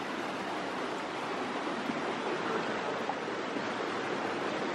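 Steady rush of a shallow mountain stream pouring over rock ledges and small rapids.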